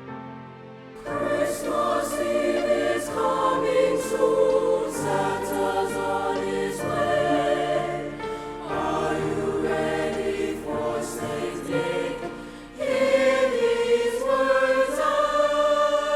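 High school mixed choir singing a Christmas pop song with accompaniment. The full choir comes in about a second in, and the singing gets louder near the end.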